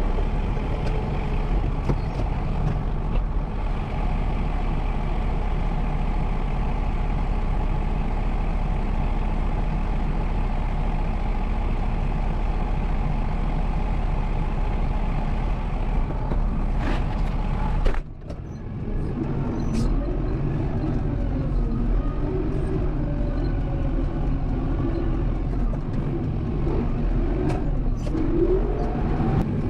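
Kubota M7060 tractor's four-cylinder diesel engine running steadily while plowing snow. The sound drops out abruptly about two-thirds of the way through and picks up again, now with a wavering pitch.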